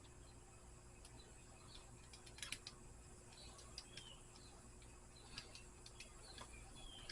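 Faint near-silence broken by scattered small metallic clicks as a washer and screw are handled and fitted on an alternator wiring terminal, with a few faint bird chirps.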